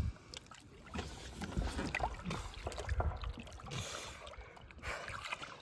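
Lake water sloshing against the side of a small boat as a large muskie is held in the water for release, with irregular low thumps.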